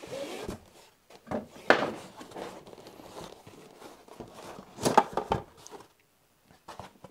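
Cardboard packaging handled: a black inner tray sliding out of its printed box sleeve, with scraping and rustling and a few sharp knocks, the loudest about two seconds in and again around five seconds in.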